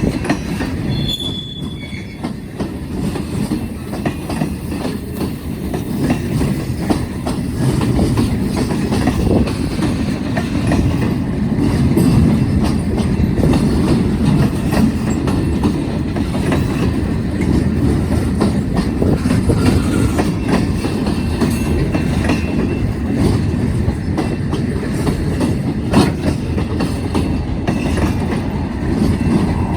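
Freight cars of a BNSF manifest train rolling past at steady speed: a continuous heavy rumble with the clickety-clack of wheels over rail joints, and a brief faint high wheel squeal about a second in.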